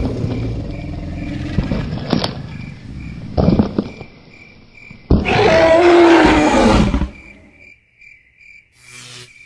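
Dinosaur roar sound effect: a loud roar of about two seconds, starting about five seconds in and falling in pitch. Before it there is a low rumble with a few sharp knocks. A faint high chirp like an insect repeats throughout.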